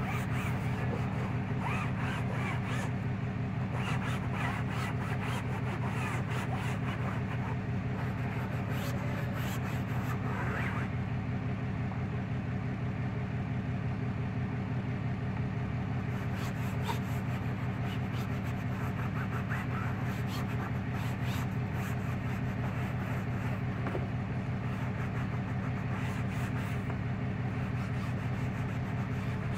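A cloth scrubbing the fabric headliner of a Toyota RAV4 in quick rubbing strokes, with a pause of a few seconds near the middle, over a steady low machine hum.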